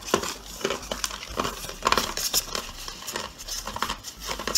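Yu-Gi-Oh trading cards being gathered and fanned out by hand: stiff cards sliding and flicking against one another in a string of small irregular clicks and rustles.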